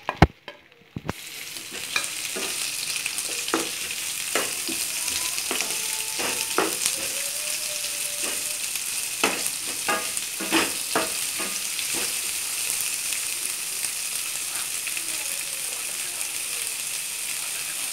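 Chopped onions sizzling in hot oil with cumin seeds in an aluminium kadai, the steady hiss starting about a second in as they drop into the pan. A wooden spatula knocks and scrapes against the metal pan as the onions are stirred.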